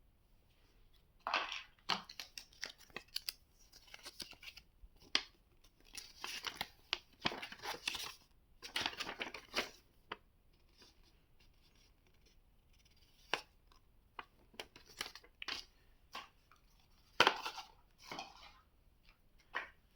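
Earbud packaging being unboxed by hand: irregular scratchy rustling and tearing of the wrapping and box, with a few sharp clicks and knocks.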